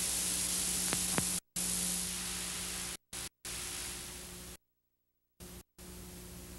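Steady hiss over a low hum, the background noise of a soundtrack with nothing else on it. Two faint clicks come about a second in, and the hiss cuts out to silence several times, once for nearly a second past the middle.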